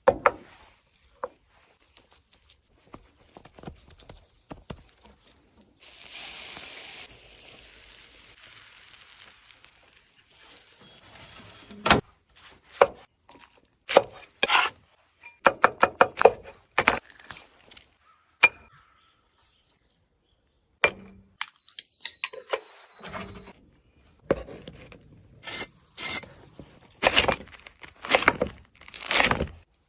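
Cooking clatter: scattered clinks and knocks of utensils against dishes and cookware, with a few seconds of steady hiss starting about six seconds in.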